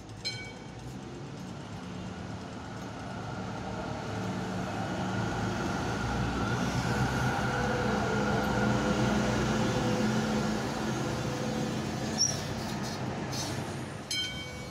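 Yarra Trams A-class tram running in along the tracks and pulling up at a platform stop, its motors giving a steady hum that grows louder as it nears. A short high chirp sounds about twelve seconds in.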